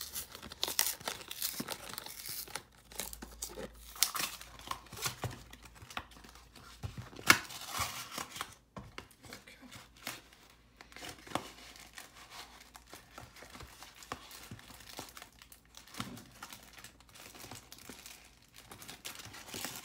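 Cardboard trading-card hanger box being torn open and the big wrapped pack inside crinkled and ripped: irregular rustling and tearing with sharp crackles, the loudest about seven seconds in.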